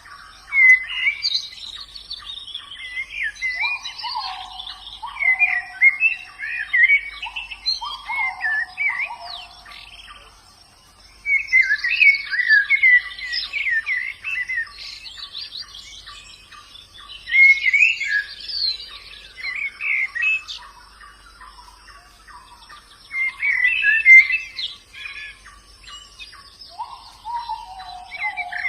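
White-eyes (pleci) singing: rapid, high twittering phrases several seconds long with short pauses between them, and lower falling notes underneath at times.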